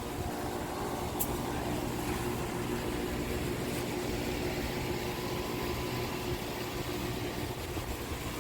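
A steady mechanical drone with a faint steady hum and a single light click about a second in.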